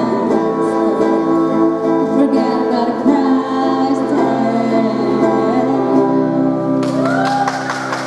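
A woman sings a pop song live into a microphone, accompanied by two strummed acoustic guitars. About seven seconds in, a noisy clatter joins the music as the song draws to a close.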